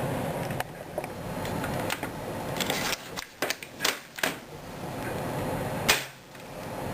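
Sharp mechanical clicks from handling a metal airsoft trigger assembly: a few light clicks, a quick run of clicks in the middle, and one louder click near the end, over a steady background hiss.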